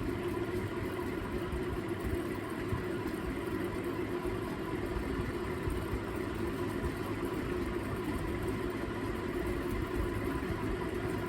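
CEC Georgian 303D ceiling fan running steadily on high speed: an even whoosh of moving air over a constant motor hum.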